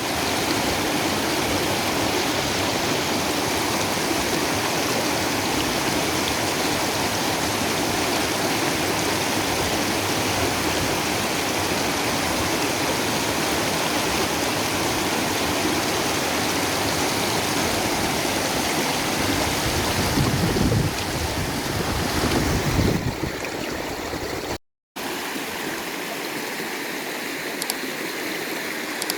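River water flowing in a steady, loud rush. Near the end it cuts out for a moment and comes back somewhat softer.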